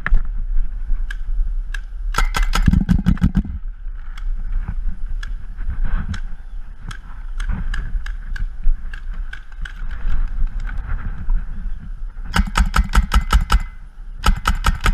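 Paintball markers firing: scattered single shots, and rapid strings of sharp pops at about six to seven a second, one string about two seconds in and two more near the end, over a steady low rumble.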